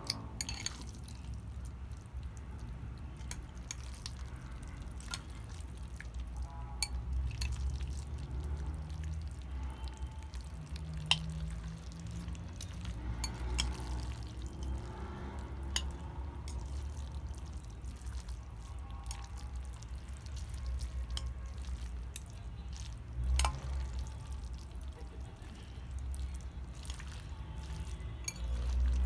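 Close-miked eating sounds of saucy instant noodles: many scattered wet clicks and small sharp taps as the noodles are stirred and eaten.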